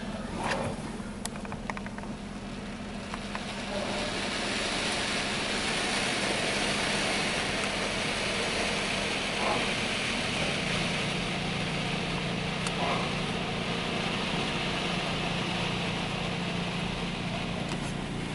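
Water spray from a PDQ ProTouch Tandem automatic car wash drumming on a truck, heard from inside the cab. It is a steady hiss that starts a few seconds in, over a low steady hum.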